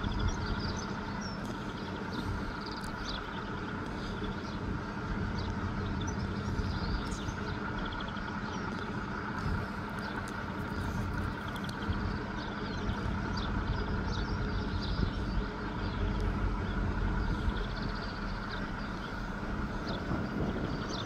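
Outdoor background of a steady low mechanical hum and rumble, with small birds chirping again and again over it.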